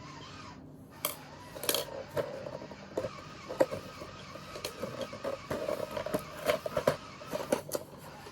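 Irregular clicks, taps and rattles of small plastic toys and packaging being handled during unboxing.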